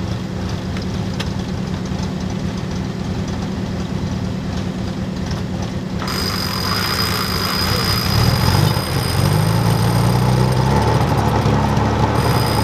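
Off-road 4x4's engine running steadily at low revs, then revving up in rising steps and getting louder from about eight seconds in.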